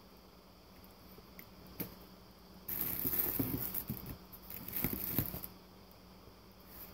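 Crinkly rustling of a meal-kit box's foil insulation liner and paper recipe cards being handled, starting about three seconds in and lasting a few seconds, after a single light click.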